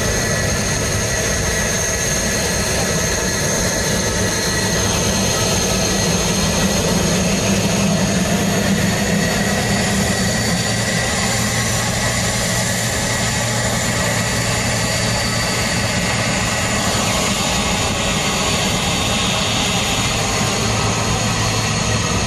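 Jet airliner engine noise: a steady, unbroken drone with a low hum and a thin high whine.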